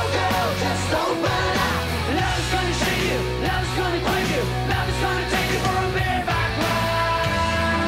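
Hard rock song with a male lead vocal over distorted electric guitar, bass and drums; near the end a long note is held.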